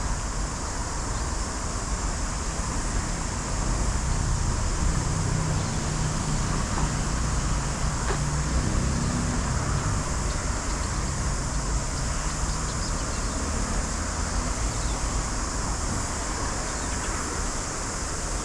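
Steady outdoor traffic rumble that swells a little partway through, under a constant high hiss.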